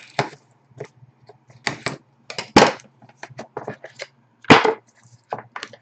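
Scissors cutting the seal of a Dominion hockey card box, then the box being handled. A string of sharp snips, clicks and crinkles, with the loudest snaps about two and a half and four and a half seconds in.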